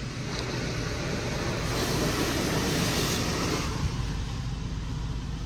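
Automatic car wash machine spraying water and soap onto the car, heard from inside the cabin: a steady spray noise over a low hum, swelling louder for about two seconds in the middle before easing back.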